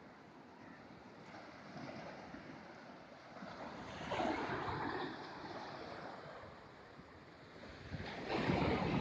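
Sea surf washing up onto a sandy beach, with waves breaking in swells. A wave swells up about four seconds in, and the surf grows loudest near the end.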